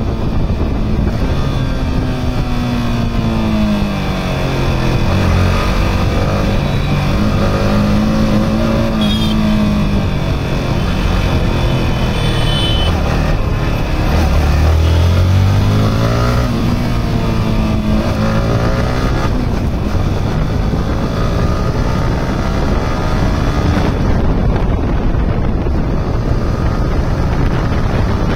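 Yamaha R15M's single-cylinder engine heard from the saddle while riding, its note rising and falling over and over as the rider accelerates and eases off. A steady rush of wind and road noise runs underneath.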